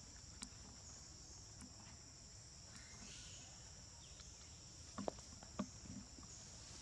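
A steady, high-pitched drone of insects in the forest, with a few soft clicks about five seconds in.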